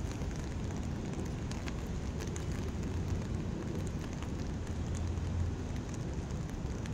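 Outdoor city ambience in light rain: a steady low rumble under an even hiss, with scattered faint ticks.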